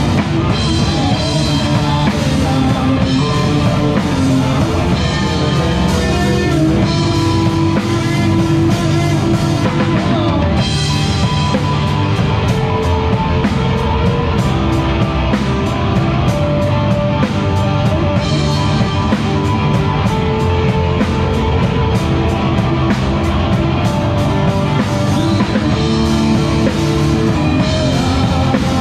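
A live rock band plays loudly, with electric guitars and a drum kit, and fast, steady cymbal hits through the middle of the stretch.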